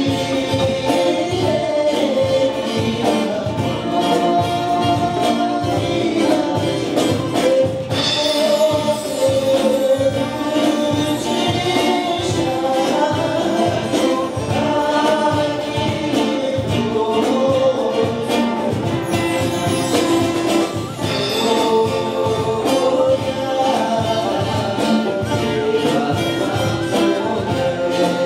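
Live folk-style song: a man singing while playing a plucked long-necked lute (a dramnyen), over a steady percussion beat.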